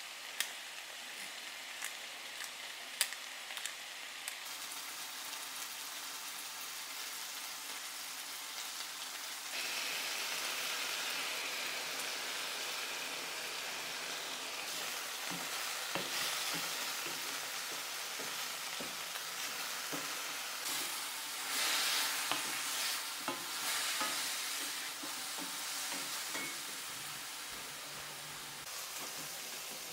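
Stir-fry of bitter melon, tofu and bean sprouts sizzling in a hot wok, with a wooden spatula scraping and knocking against the pan as it is tossed. A few sharp clicks come in the first few seconds, and the sizzle grows louder about ten seconds in.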